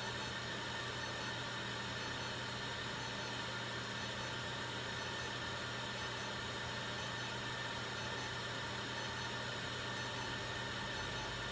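A small electric machine running with a steady, even hum and whir.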